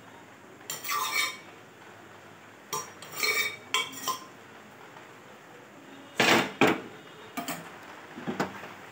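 A metal spoon scrapes and clinks against an aluminium pressure cooker pot as cooked potato curry is scraped out into a stainless steel bowl. It comes in several short bouts, the loudest about six seconds in.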